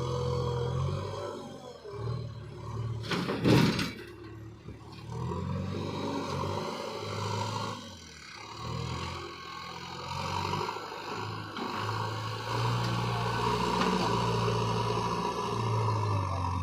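JCB excavator's diesel engine running under load, its level rising and falling as the machine works the mud, with one loud short burst of noise about three and a half seconds in.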